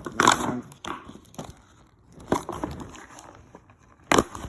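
Unboxing packaging being handled: scattered crinkling and rustling, with a sharp click about four seconds in.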